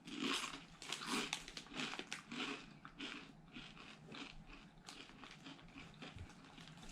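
Crunching and chewing of Doritos tortilla chips in the mouth: dense, irregular crisp crunches that thin out after about three seconds into slower chewing.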